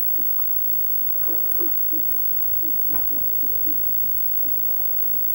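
Indistinct voices of people talking at a distance, in short scattered snatches, over a steady low hum.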